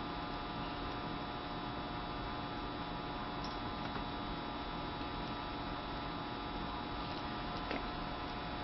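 Steady electrical mains hum with background hiss, holding several steady tones. A few faint ticks come around the middle and near the end.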